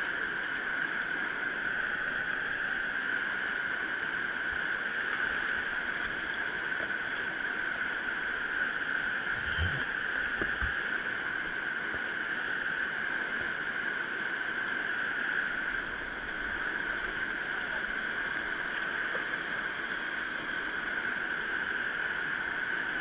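Steady rushing of a mountain river, unbroken throughout, with a faint low knock about ten seconds in.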